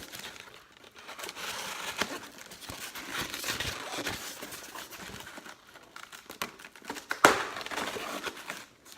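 Packaging crinkling and rustling as LED bulbs are unwrapped by hand, with a sharp knock about seven seconds in.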